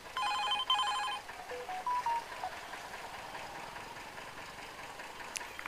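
Smartphone alert tones: a two-note electronic chime, then a quick run of single beeps stepping up in pitch and settling back down. A single sharp click sounds near the end.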